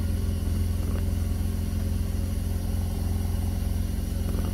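A steady low engine hum, like a motor idling, unchanged throughout.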